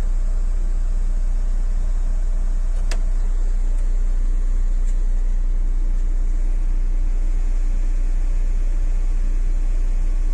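Steady low rumble of an AC sleeper bus on the move, heard from inside the cabin, with one sharp click about three seconds in.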